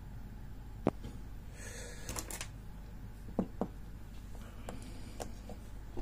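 Scattered clicks and knocks of a small brass lock and a screwdriver being handled on a desk. The sharpest click comes about a second in, a short scraping rustle follows, then a pair of knocks and a few lighter clicks.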